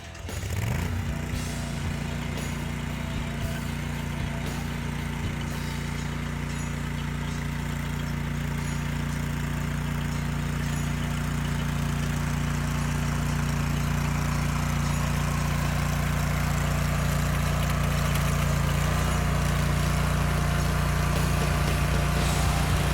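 Mini skid steer's engine revving up about half a second in, then running steadily at high throttle and growing slightly louder, driving a hydraulic sickle bar mower through roadside brush and grass.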